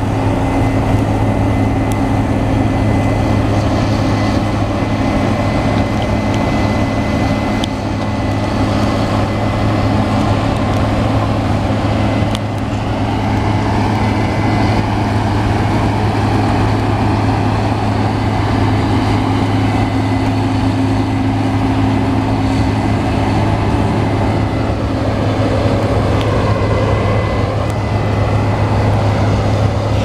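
Combine harvester running as it cuts wheat: the steady drone of its diesel engine and threshing machinery, with a thin high whine over it.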